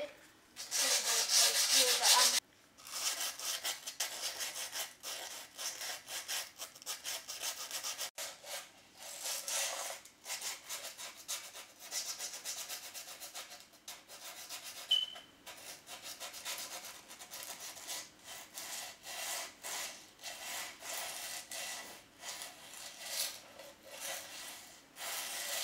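Rapid scraping strokes rubbed along the edge of a skateboard deck's grip tape to smooth the edge. The strokes are loudest in the first couple of seconds, then go on in quick runs with short pauses.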